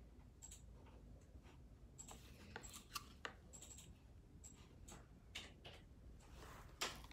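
Faint, scattered light clicks and taps of handling: a small cardboard contact-lens box being turned over in the hand close to the phone.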